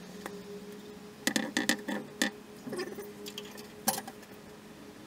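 A quick run of sharp clicks and clinks of hard objects about a second in, and one more near four seconds, over a steady low hum.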